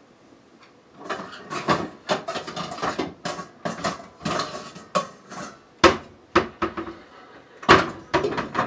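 Pots and pans clattering as someone rummages through a lower kitchen cabinet: a run of metal knocks and clanks starting about a second in, with two louder bangs in the second half.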